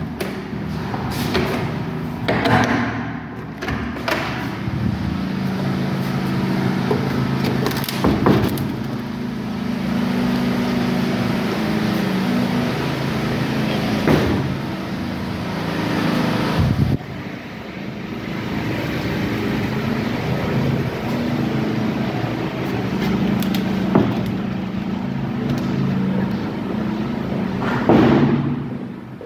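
A steady low mechanical hum, like a running motor or engine, with scattered sharp knocks and clicks over it, about eight in all.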